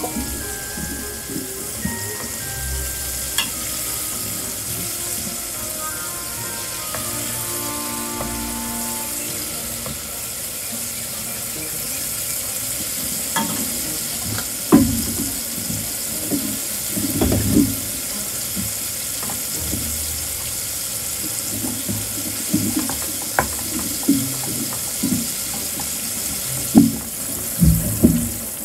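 Spicy chicken and sauce sizzling and bubbling in a frying pan, with the scrape and clack of a utensil against the pan as the sweet potato, cabbage and rice cake are stirred in, the knocks coming more often in the second half.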